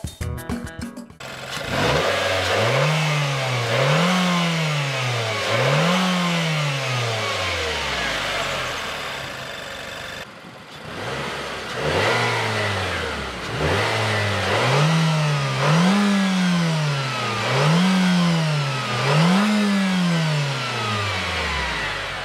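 Nissan Juke Nismo's 1.6-litre DIG-T turbocharged four-cylinder engine revved repeatedly while stationary. Each rev climbs quickly and drops back over a second or two. There are about three revs, a brief break about ten seconds in, then about four more.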